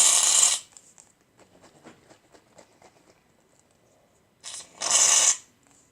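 Aerosol can of shaving cream spraying foam in two hissing bursts: the first ends about half a second in, the second comes about four and a half seconds in and lasts about a second. Faint small clicks of handling lie between them.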